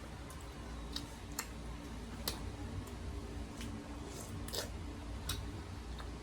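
Mouth clicks and smacks of someone eating grapes: about six sharp clicks at uneven intervals, over a low steady hum.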